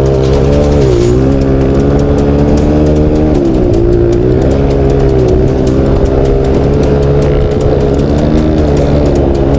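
Single-cylinder four-stroke trail motorcycle engine running hard, its pitch rising and falling as the throttle is worked. The revs dip about a second in and again around three seconds in, then climb back.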